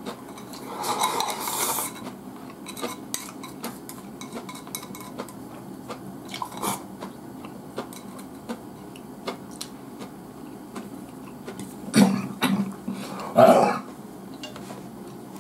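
Chopsticks clicking and scraping against a rice bowl as rice is scooped up and eaten, in many small irregular ticks. Near the end come two louder clatters of tableware.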